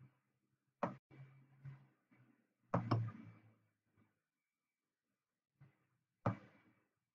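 Three sharp knocks from handling at a desk: one about a second in, a doubled one near three seconds, and one past six seconds, each fading quickly, with a faint low hum between them.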